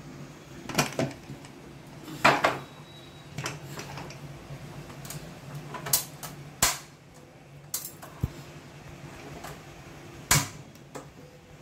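Aluminium pressure cooker being closed and handled on the stove: a scattered run of metallic knocks and clicks from its lid and whistle weight, the loudest about two seconds in and again near the end, over a faint steady low hum.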